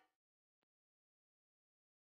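Near silence: a gap in the background music.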